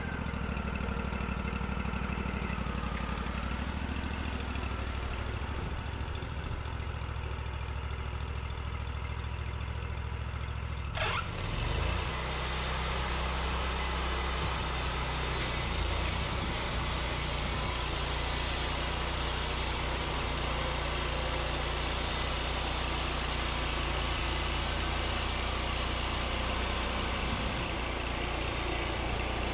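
Wood-Mizer LT40 hydraulic sawmill's engine running steadily as the saw head travels along the track. About 11 seconds in there is a short knock, and after it the sound turns brighter, with more hiss over the engine hum.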